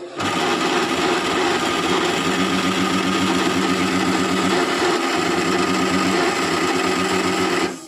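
Jyoti mixer grinder's electric motor switched on and running steadily, then cut off abruptly near the end. It runs at reduced speed, which the repairman links to burnt wiring.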